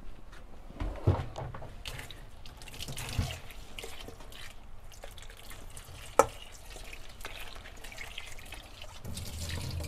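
Gloved hand kneading crumbly, spiced çökelek (dry curd cheese) in a large stainless-steel basin: soft, irregular crumbling and squishing, with a few sharp knocks. The sharpest knock comes about six seconds in.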